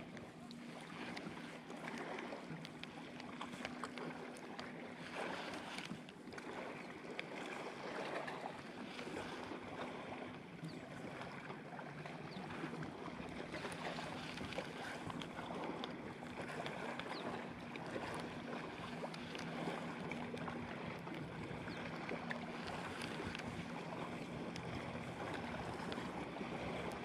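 Water lapping against a kayak hull, with light wind on the microphone and a faint steady low hum underneath.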